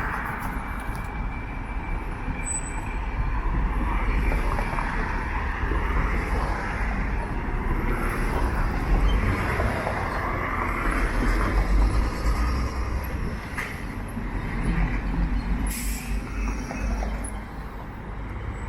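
City street traffic, a steady rumble of passing vehicles.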